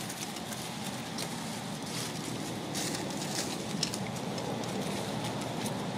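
Dry fallen leaves crackling and rustling underfoot as a small monkey walks across leaf litter, a few sharper crunches about halfway through, over a steady low background noise.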